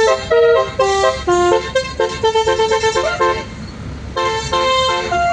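Multi-tone 'telolet' bus air horn of the basuri type playing a quick stepped melody of separate notes, with a brief lull a little past the middle.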